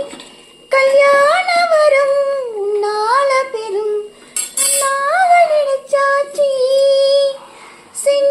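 A high female voice singing a Tamil song melody, with held notes and sliding phrases and short pauses between lines.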